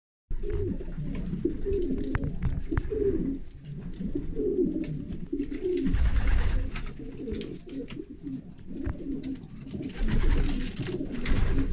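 Domestic pigeons cooing continuously, many low wavering coos overlapping. Swells of low rumbling noise come in about six seconds and again about ten seconds in.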